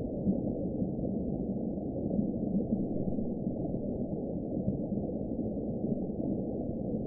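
Designed deep-sea underwater ambience: a steady, muffled low rumble of deep water with no high sounds at all.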